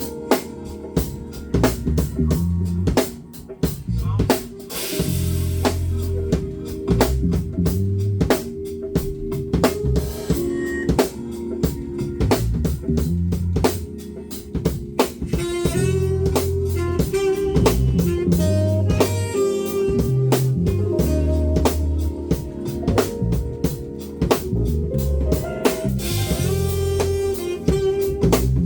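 Band playing an instrumental groove on drum kit, guitar and bass, with quick, steady drum strokes and a pulsing bass line.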